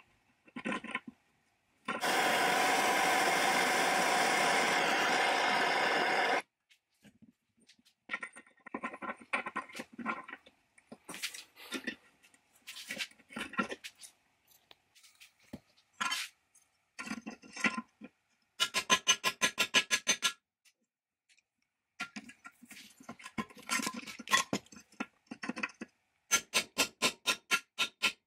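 Metal tool work on a rusted pipe fitting in a cast iron forge pan. A steady mechanical noise runs for about four seconds near the start, then come scattered taps, scrapes and clinks of steel on iron, with two runs of quick, even strikes later on, as a splined extractor is worked into the rusted fitting.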